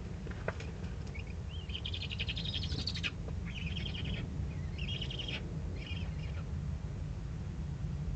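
Eurasian eagle-owl owlet giving rasping begging calls, four in a row, the first the longest, over a steady low hum.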